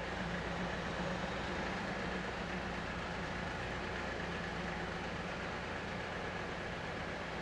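Heavy tractor truck's diesel engine running steadily at low speed as it creeps forward, a constant low hum with no breaks.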